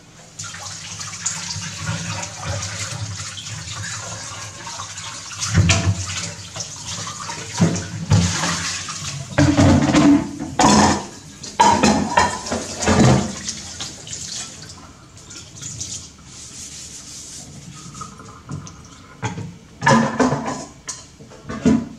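Kitchen tap running into a sink while dishes are washed, with plates, bowls and utensils knocking and clinking against the sink and each other, in clusters through the middle and again near the end.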